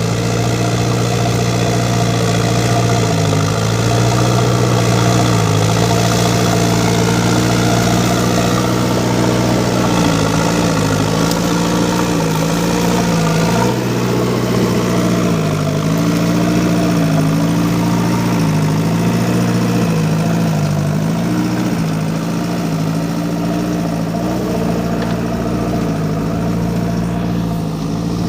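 JCB 3DX backhoe loader's diesel engine running, its pitch dipping briefly and recovering over and over, typical of the engine bogging under hydraulic load while digging and loading.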